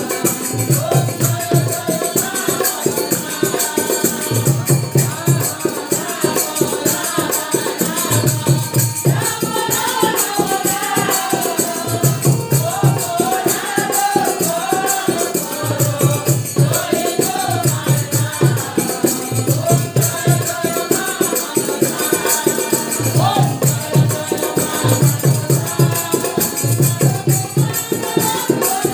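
Group of voices singing a Bengali devotional kirtan to Goddess Manasa, with a two-headed barrel hand drum playing low strokes in a steady repeating rhythm, small hand cymbals ringing continuously, and hand clapping.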